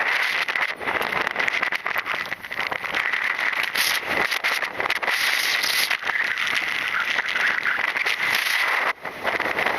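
Strong gusting wind buffeting the action camera's microphone, a continuous rough rushing with crackle and brief dropouts, under a steady faint high whine.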